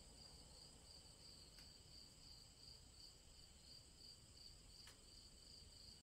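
Faint crickets chirping in a steady, even pulsing rhythm.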